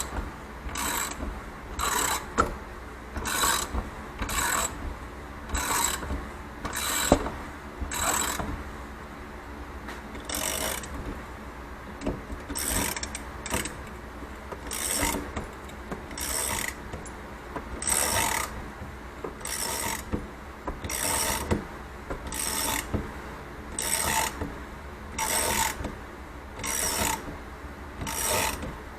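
A motorcycle spring compressor being cranked by hand to squeeze an ATV coil-over shock spring, in short rasping strokes about once a second that slow slightly after a brief pause. The steady, slow cranking is the careful compression of the spring.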